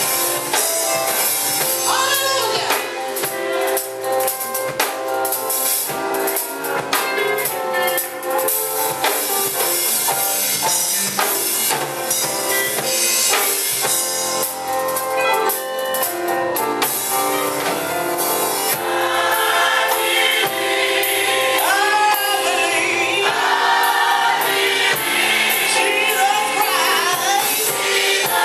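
Live gospel choir singing with tambourine and drum accompaniment. The voices swell fuller about two-thirds of the way in.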